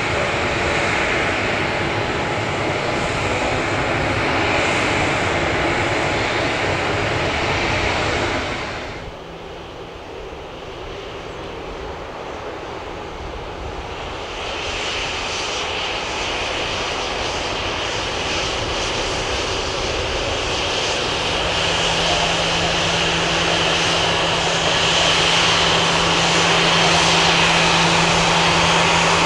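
Boeing 737-800's CFM56 jet engines running at taxi power. The sound drops suddenly about eight seconds in, then builds again with a steady high whine as the jet taxis closer.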